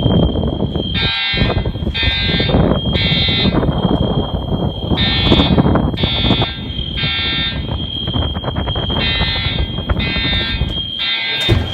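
Fire alarm sounders giving the temporal-three evacuation signal: three short horn blasts in a row, repeating about every four seconds. Under them run a steady high-pitched tone and a low rumble.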